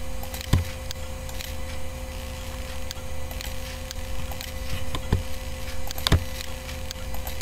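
A few sharp computer mouse clicks, the clearest about half a second in and twice more near the end, over a steady low electrical hum.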